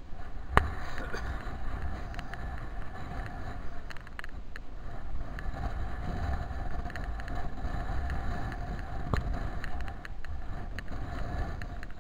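Wind rumbling on a body-worn camera's microphone and knocking of the camera as it is carried over rough grass, with two sharp knocks, one about half a second in and one about nine seconds in. A faint steady hum runs under it.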